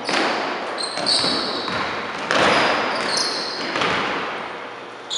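A basketball bouncing a few times on a hardwood gym floor, each bounce echoing in the hall. Sneakers squeak briefly on the floor in between.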